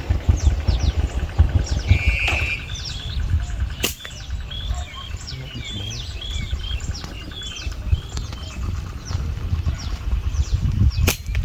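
Small birds chirping over and over in quick, falling chirps, over a low rumble that eases off in the middle. Two sharp snaps, one about four seconds in and one near the end.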